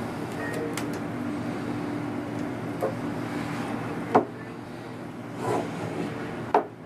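Sharp clicks and knocks from a repair tool and the loosened glass screen of an iPad 2 being handled, five in all, the loudest about four seconds in. A steady low hum runs underneath and drops somewhat after the loudest knock.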